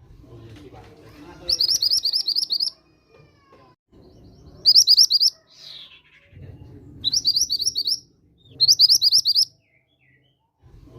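Song of the bird called mantenan gunung: four short bursts of about a second each, every one a fast run of six or seven high, sharp notes, with gaps of one to two seconds between them and a faint low rumble underneath.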